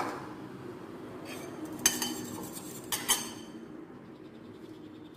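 Kitchenware clinking: a utensil knocking against salad bowls, a sharp knock at the start and a few ringing clinks about two and three seconds in, as the salad is mixed.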